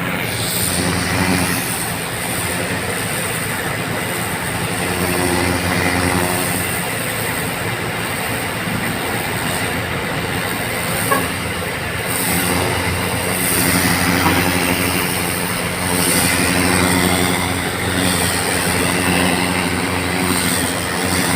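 Engine-driven water pump running steadily for street flushing, with water hissing from the hose jet. There is one short knock about halfway through.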